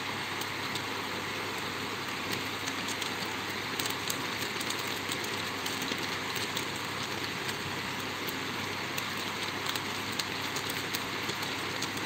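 Indos 9-inch (225 mm) wall-cum-table fan running steadily at its top speed: an even rush of air from the blades, with faint flutter from ribbon strips held in its airflow.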